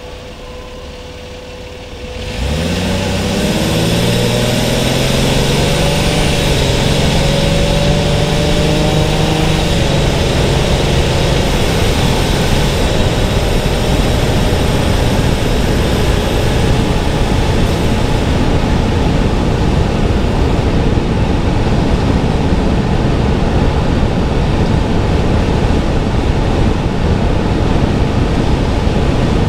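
Car engine pulling away after about two quieter seconds, its pitch climbing over several seconds as it speeds up, then steady road and wind noise while cruising.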